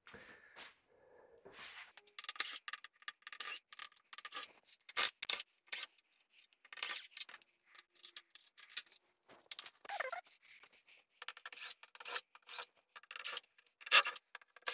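Quick runs of short scrapes and clicks from hand work with a Phillips screwdriver, taking the screws and guide rails off the back of a mirrored wardrobe door. One sharp knock near the end is the loudest sound.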